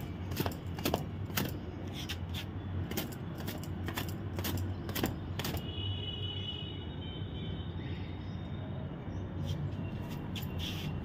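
Bangles clinking in sharp, irregular clicks as long wet hair is shaken and rubbed dry with a cotton gamchha towel, over a low steady background hum. The clinking stops about halfway through and comes back briefly near the end.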